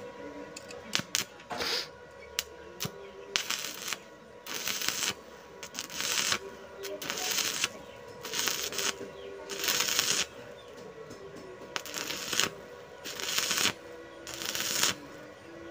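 Stick-welding arc crackling and sputtering in short bursts, struck and broken again roughly every second or so as a bead is laid on steel.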